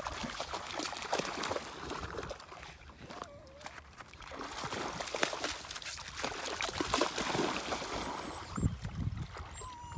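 Water splashing and sloshing irregularly, louder in the second half.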